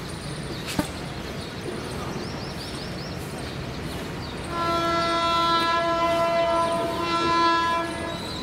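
Indian Railways WAP-5 electric locomotive approaching and sounding its horn: a long, loud, steady blast that starts about halfway through and lasts about three and a half seconds, over the faint noise of the oncoming train.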